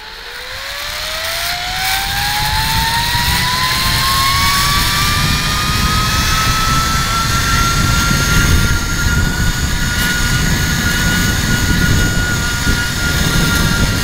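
Zip line trolley pulleys running along the steel cable, a whine that rises in pitch over the first several seconds as the rider picks up speed, then holds steady at full speed. Wind rumbles on the microphone underneath.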